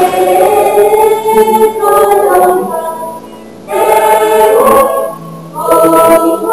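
Background music: a choir singing long held chords phrase by phrase, with short breaks between the phrases.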